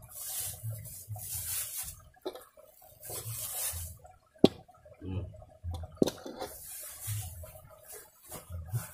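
Black plastic bag rustling and crinkling in bursts as a wok and other cooking gear are handled and pulled out of a backpack, with dull handling bumps and two sharp knocks, the louder one about four and a half seconds in.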